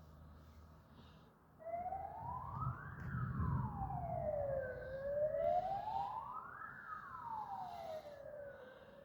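A siren wailing, its pitch sweeping slowly up and down about every three and a half seconds, starting about a second and a half in. A low rumble sits under it during the first few seconds of the wail.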